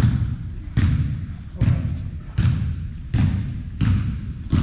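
A steady series of heavy thumps, about seven of them at roughly one every three-quarters of a second, each a sharp knock with a deep, short-lived body.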